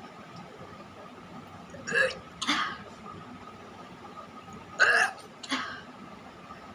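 A person retching, four short throaty heaves in two pairs, each pair about half a second apart.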